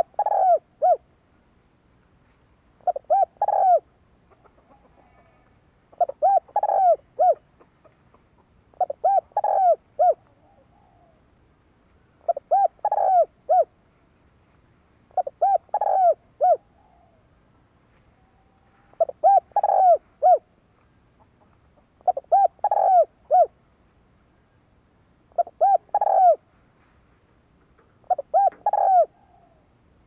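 Spotted dove cooing: short phrases of three or four low coos, each about a second long, repeated about every three seconds.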